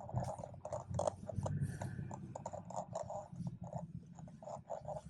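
BMW 440i's turbocharged B58 inline-six engine heard from inside the cabin while driving, a low uneven rumble, with scattered short clicks and rustles over it.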